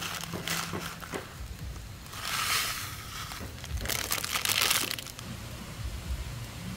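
Plastic instant-noodle packet crinkling and rustling in three bursts as dry noodle pieces are shaken out of it into a metal pot.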